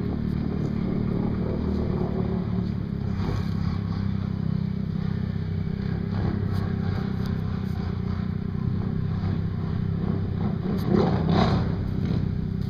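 Can-Am ATV engine running steadily as the quad wades through deep pond water, with a brief surge of louder revs near the end.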